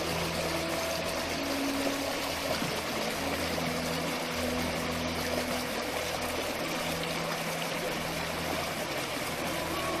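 Mountain stream rushing over rocks, a steady even noise of fast-flowing water.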